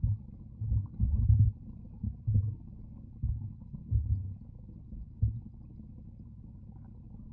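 Muffled underwater sound from a submerged camera: irregular low thuds and bumps, about eight in the first five seconds, over a steady low rumble.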